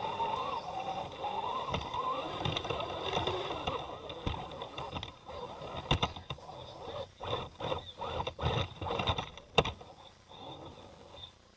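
Electric RC scale rock crawler's motor and gear drivetrain whining as it works over rocks, the pitch wavering with the throttle. Sharp knocks come about six seconds in and again near ten seconds.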